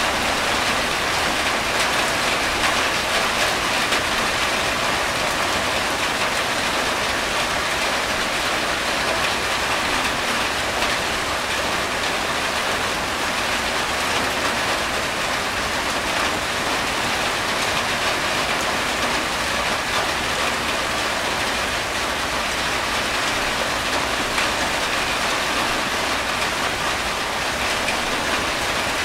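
Steady rain falling on a corrugated tin roof, with water running off its edge.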